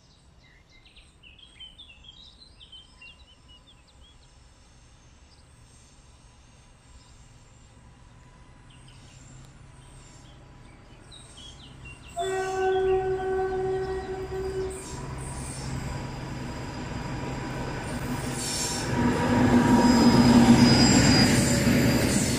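A DR V100 (class 112) diesel-hydraulic locomotive approaching and sounding one long single-note horn blast of about two and a half seconds, a little past halfway. Its engine and the rolling train then grow louder as the locomotive passes and the passenger coaches roll by on the rails.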